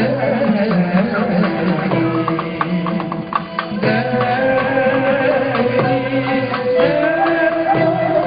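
A male solo voice sings a Turkish classical song in makam Şevk-efzâ, accompanied by a small ensemble with violin, cello and plucked kanun notes. The music dips briefly about three seconds in, then carries on.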